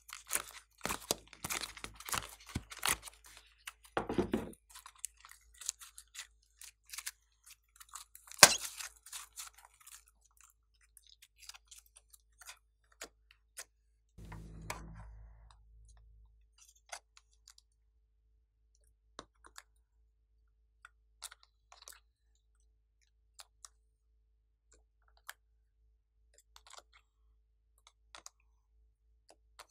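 Sticky crackling clicks of a silicone heart mold being handled and soft clay hearts pressed out of it onto slime, dense at first with one sharp louder click, then thinning out to sparse faint ticks. A brief low sound comes about halfway through.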